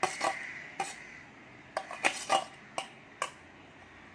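A cooking utensil clinking and scraping against a tawa as fried onion and tomato are scooped out into a bowl, with about eight short sharp clinks spread through.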